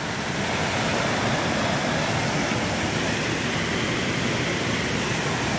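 Rocky mountain stream rushing over rocks and through small cascades, running high after heavy rain: a steady, even rush of water.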